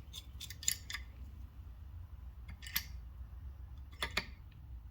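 A few light metallic clicks and clinks of hand tools being handled: a cluster in the first second, one near the middle and two more near the end, over a low steady background hum.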